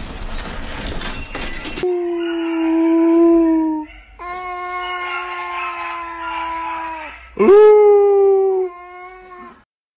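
Dog howling: three long, steady howls, the third starting with a sharp upward swoop and the loudest. Before the first howl, about two seconds of rough, hissy noise.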